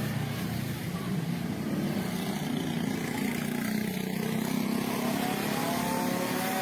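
Motor vehicle engines running, with one engine's pitch rising from about five seconds in.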